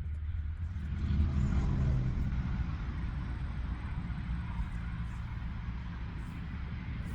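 A motor vehicle's engine running, a low steady rumble that swells about a second in and then holds.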